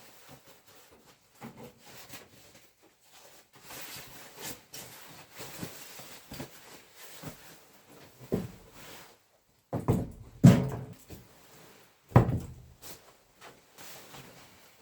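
Scattered rustling and handling noises with a few louder knocks, the loudest about ten and twelve seconds in.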